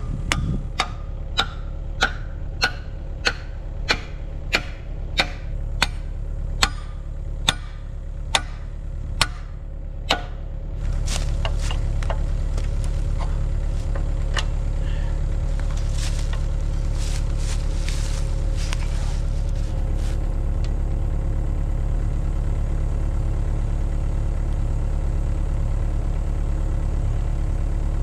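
Excavator-mounted hydraulic hammer pounding rock in a steady rhythm, about three blows every two seconds, over the excavator's running diesel engine. The blows stop about 11 seconds in and the engine runs on steadily, a little louder.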